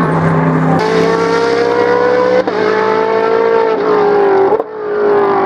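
Mercedes-Benz SLS AMG GT3's naturally aspirated 6.2-litre V8 accelerating hard, its pitch climbing through each gear and breaking at three quick upshifts in the second half.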